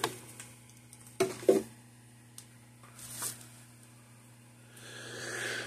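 Light clicks and knocks of hands handling loose wiring and a circuit board inside the plastic case of an electric fence charger, with two louder knocks about a second and a half in, over a steady low hum.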